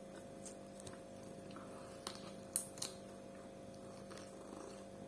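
Quiet eating sounds with a few sharp clicks and smacks a little past the middle, over a steady electrical hum.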